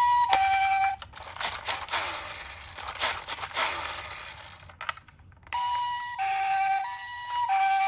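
Toy ambulance minicar's electronic two-tone hi-lo siren, cutting off about a second in. A few seconds of scraping, crinkling noise follow, then the siren starts again after about five and a half seconds.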